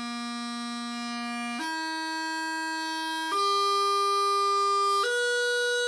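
Highland bagpipe chanter playing a slow exercise: single held notes stepping upward, each about a second and a half long, getting a little louder on the higher notes.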